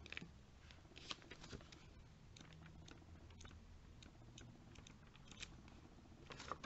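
Near silence with faint flicks and rustles of glossy catalogue pages being turned by hand, several in a row.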